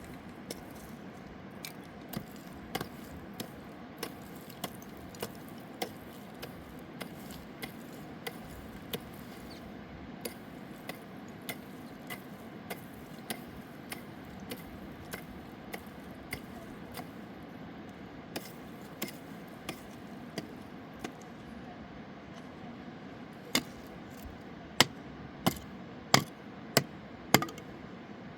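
A series of short, sharp knocks, about one every half second to second, like chopping or tapping, over a steady rushing background noise. Five louder knocks come close together near the end.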